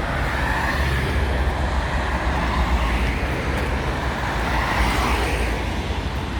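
Steady road traffic: cars driving past close by, tyre and engine noise swelling and fading as they go by.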